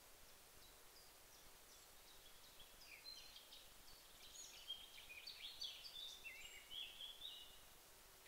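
Faint bird song: a quick, varied run of short high chirping notes lasting several seconds, loudest in the second half, over a steady hiss.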